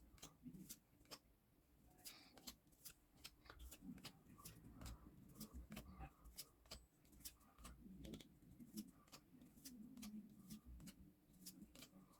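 Yu-Gi-Oh! trading cards being handled and flipped through: a run of faint, quick clicks, a few each second, with soft rustling between them.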